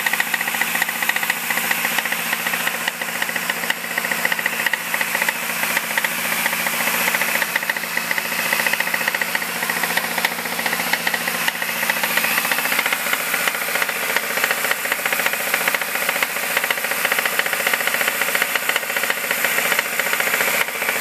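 2005 MINI Cooper S's supercharged 1.6-litre four-cylinder engine running steadily with a rapid clacking, clicking noise.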